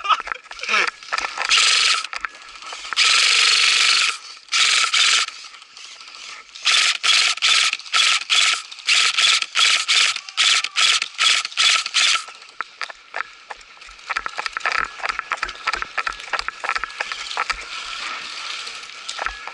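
Airsoft electric gun (VFC MK18 Mod1 replica) firing: a few longer full-auto bursts in the first five seconds, then a quick run of short bursts, about two a second, for some six seconds. After that it falls to quieter steps and rustling.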